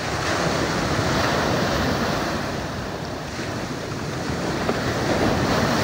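Ocean surf breaking and washing up the beach, swelling twice, with wind buffeting the microphone.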